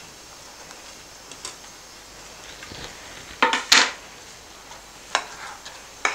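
A spatula stirring in a pan, scraping sharply four times in the second half, twice in quick succession then twice more, as ground chana dal powder is mixed into thick sugar syrup.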